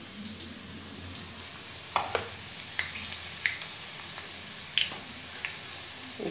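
Sliced onions, dried red chillies and bay leaves frying in hot oil in a wok, turning golden: a steady sizzle with scattered crackles and pops.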